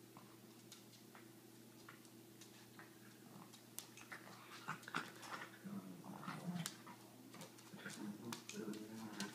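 Two small dogs play-fighting on a hardwood floor: soft dog whimpers and low grumbling noises, with claws and paws scuffing and clicking on the wood. Quiet at first, getting busier and louder about halfway through.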